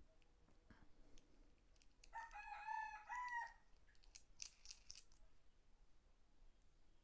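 A rooster crowing once in the background, faint, starting about two seconds in and lasting over a second. Faint clicks and a brief rustle come from the plastic chest mount being handled.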